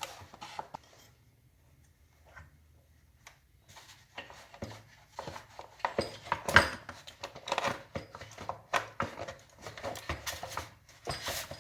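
Small clicks, taps and rubbing as hands work the wiring and spade connectors on a pancake air compressor's new pressure switch. Quiet at first, then denser from about four seconds in, with the loudest knock about two-thirds of the way through.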